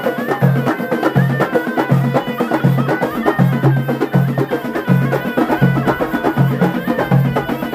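Amazigh ghaita, a double-reed shawm, playing a winding, ornamented melody over a steady, even beat on a two-headed tbel drum and hand frame drums.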